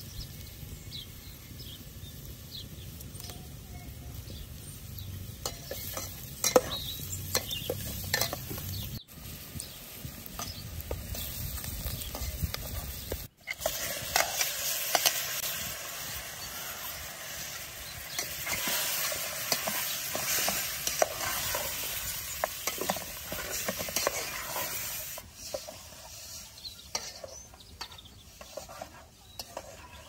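Diced onions and lamb pieces frying in hot oil in an aluminium pot over a wood fire, with a metal ladle clinking and scraping against the pot as the food is stirred. Partway through the sizzling grows much stronger as the meat cooks, then dies down near the end.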